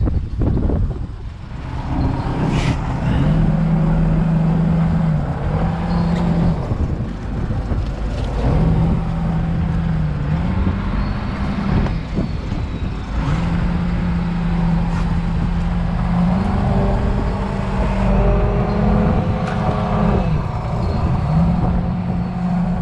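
A fishing boat's machinery running loudly: a steady hum that steps up and down in pitch every few seconds, under a constant rushing noise of wind and sea.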